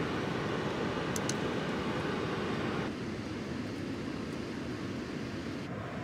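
Steady rushing noise of strong wind against the tent. Its tone drops abruptly, first about three seconds in and again near the end.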